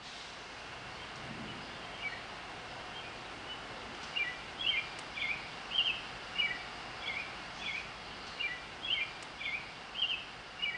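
Outdoor ambience with a steady background hiss; from about four seconds in, a bird repeats a short two-note chirp over and over, about one and a half times a second.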